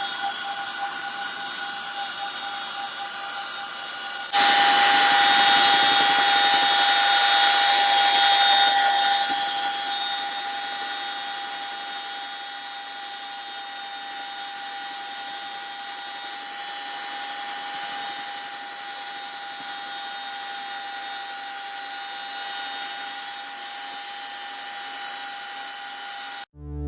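Turbine whine of a CH-47 Chinook helicopter's twin turboshaft engines, a steady high-pitched sound made of several fixed tones. About four seconds in it jumps suddenly louder, then fades over the next several seconds to a steady lower level.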